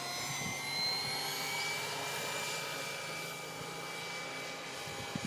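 Radio-controlled model helicopter in flight, its motor and rotors giving a steady high-pitched whine of several tones. The pitch rises a little in the first couple of seconds, then holds.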